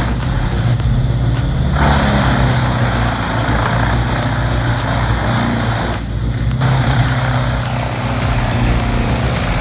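Large wood chipper's heavy diesel engine running under load, a steady low drone with a dense rushing noise of wood being chipped over it. The chipping noise drops out briefly about six seconds in while the engine keeps running.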